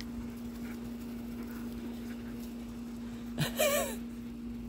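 A dog gives one short, wavering, high-pitched whine-like yelp while playing, about three and a half seconds in, over a steady low hum.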